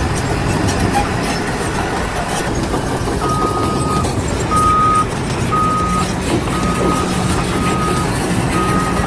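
A heavy vehicle's reversing alarm beeping over the noise of its running engine. The beeps start about three seconds in and repeat about once a second, each a single steady tone almost as long as the gap between beeps.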